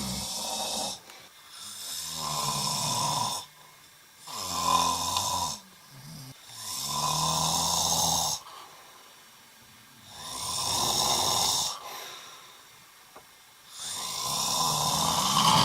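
A sleeping person snoring: six long snores, about one every two to three seconds, each a low buzzing rasp lasting a second or two.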